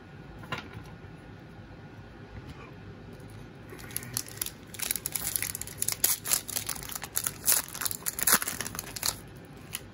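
Foil trading-card pack wrapper crinkling and tearing as it is pulled open by hand. The sound starts about four seconds in, rises to a dense crackle and stops just before the end.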